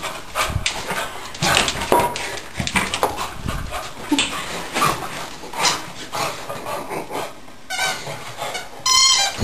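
Beagle playing with a toy on a hard floor: a run of knocks and scuffles, with short high-pitched dog cries about two seconds in and again near the end.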